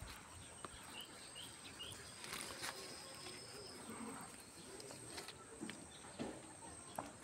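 Faint outdoor ambience: a steady high-pitched insect drone, a few short bird chirps about a second in, and scattered light clicks and rustles of leaves and branches being handled.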